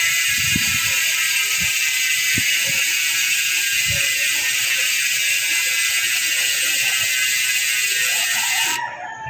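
Six-pawl bicycle rear hub freewheeling: its pawls click so fast that they merge into a steady, loud, high-pitched buzz, which cuts off suddenly near the end. A few soft low knocks sound under it in the first seconds.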